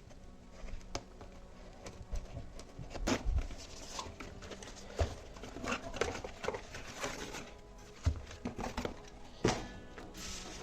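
Handling noises from a smartphone's retail box: scattered irregular taps, knocks and light rustling as the box is picked up and moved about, with a few louder knocks.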